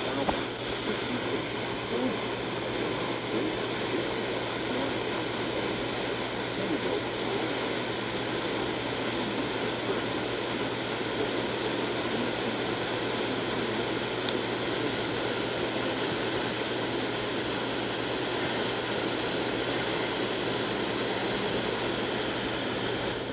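Radio receiver static: a steady hiss with a low hum under it, stopping abruptly at the very end.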